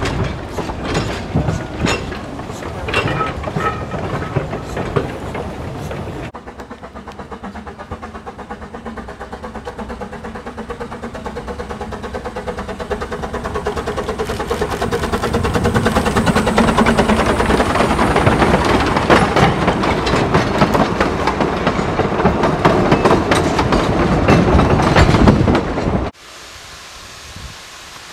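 Narrow-gauge steam locomotives. First a train rolls over pointwork with irregular clicks and clatter. Then a small tank engine's quick, even exhaust beats grow steadily louder as it approaches, and cut off suddenly near the end, leaving faint wind and leaf rustle.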